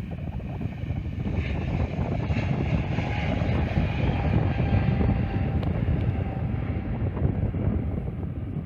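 Airliner engines rumbling as the plane passes, with a higher whine that swells through the middle and fades near the end, over wind buffeting the microphone.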